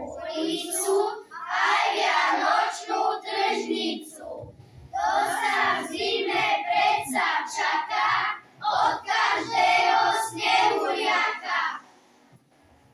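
Children singing together in three long phrases with short breaks between them, stopping near the end.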